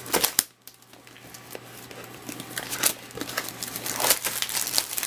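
Plastic shrink wrap being torn and crinkled off a cardboard box, in irregular crackling rustles with a few sharper snaps.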